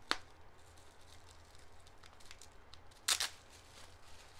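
Black plastic bubble wrap crinkling and crackling as a small stone is unwrapped: a short crackle just after the start and a louder burst of crackling about three seconds in, with faint rustling between.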